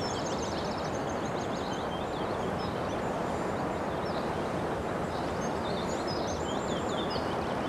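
Outdoor ambience: a steady even hiss with small birds chirping here and there, including a short trill near the start and a cluster of chirps about six to seven seconds in.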